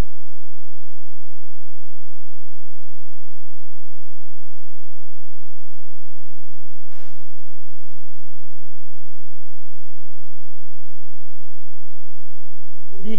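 Steady electrical mains hum: one low buzzing tone with a ladder of overtones and no voice over it. The programme audio has dropped out, leaving only the hum on the line. A faint brief hiss comes about seven seconds in.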